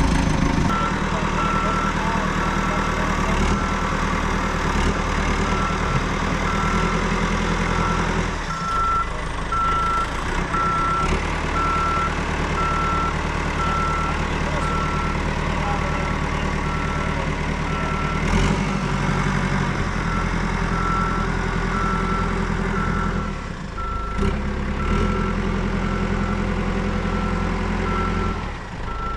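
Caterpillar backhoe's diesel engine running steadily while it backs up, its reversing alarm beeping about once a second.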